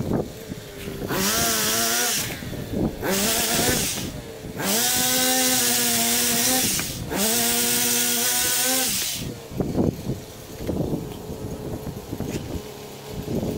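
Pole chainsaw speeding up to full speed in four bursts, the longest about two seconds. Its pitch climbs at the start of each burst and drops away at the end, with quieter, rougher running between bursts as the saw works on the tree's branches.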